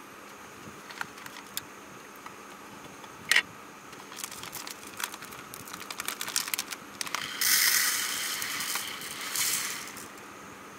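Handling sounds of rice being prepared: a sharp clack as the rice cooker's lid comes off, the crinkling of a plastic rice pouch, then rice grains pouring from the pouch into a plastic bowl as a dense hiss lasting about two seconds.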